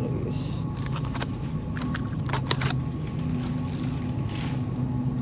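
Steady low hum of a supermarket, with a few sharp clicks and rattles between about one and three seconds in.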